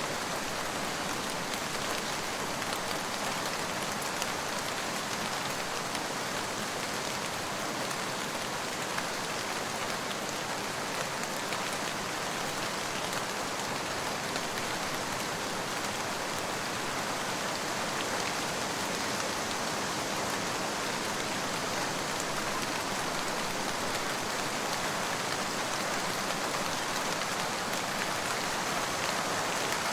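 Steady rain falling, an even wash of rain on surfaces with scattered faint drop ticks.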